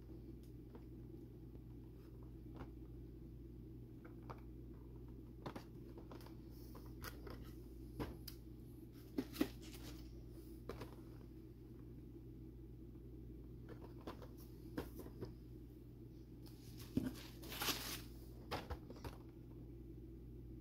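Cardboard packaging being handled: scattered light taps and knocks as boxed vinyl figures are picked up and set down on a wooden table, with a brief rustling, crinkling burst near the end, over a steady low hum.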